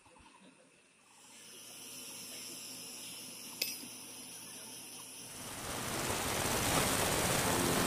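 A steady hiss of noise that swells much louder over the last few seconds, with a single sharp click about three and a half seconds in.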